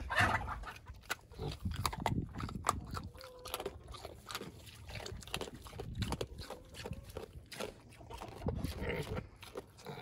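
Two mini pigs chewing and crunching food off the ground with many sharp crunches, with a few low grunts now and then.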